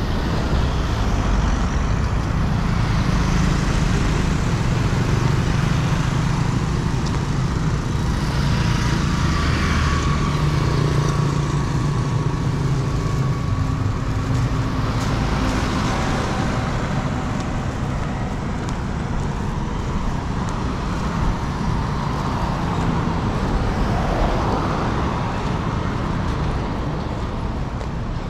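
Road traffic: motor vehicles running steadily, with several passing close by.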